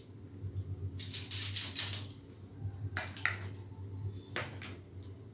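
Crunchy biting and chewing of food close to the microphone, loudest and densest about a second in, followed by a few short clicks and taps.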